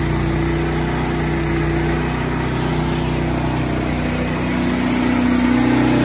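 Frontier OS23 portable band sawmill cutting through an oak log: its small gasoline engine running steadily under load, getting slightly louder near the end.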